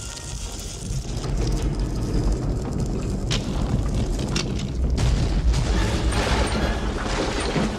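Deep, continuous rumbling that swells up over the first second, with a few sharp knocks and crashes in it: the sound effect of a stone temple starting to cave in.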